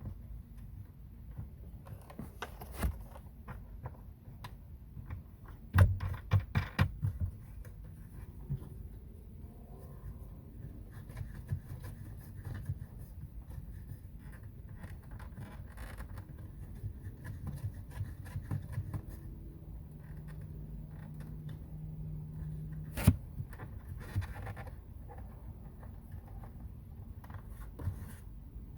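Hands scraping, rubbing and clicking small parts while wiring a boat's kill switch. A quick cluster of sharp clicks comes about six seconds in, and a single sharp click about 23 seconds in.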